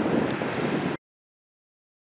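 Jet engine noise from a Boeing 777-300ER's GE90-115B engines, mixed with wind rumbling on the microphone. The sound cuts off abruptly about a second in, leaving dead silence.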